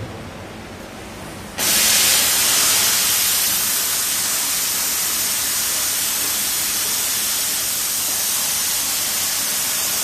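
A CNC gantry cutting machine's torch cutting: a loud, steady hiss that switches on suddenly about one and a half seconds in.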